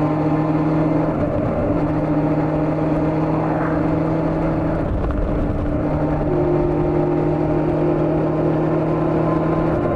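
Honda CB400 motorcycle engine running steadily at cruising speed, with a brief break in its tone about halfway through.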